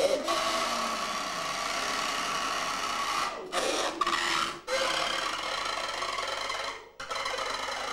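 A stick drawn hard along the edge of a box as a percussion sound, making long, sustained scraping strokes with a faint held pitch. The strokes are broken by short gaps about three and a half, four and a half and seven seconds in.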